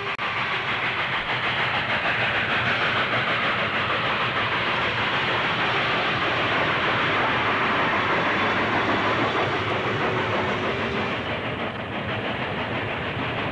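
Steam locomotive working past with a freight train: a steady, rhythmic exhaust beat with steam hiss and the clatter of wheels on the rails.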